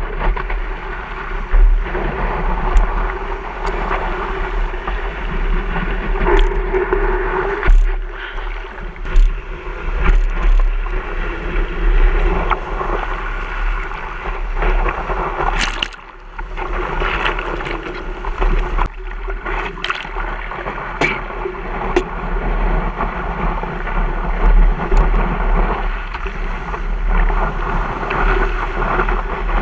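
Wind buffeting a camera mounted on the nose of a stand-up paddleboard, mixed with whitewater rushing and splashing around the board as it rides a breaking wave. Scattered sharp ticks run through it, and the noise drops away briefly for a moment partway through.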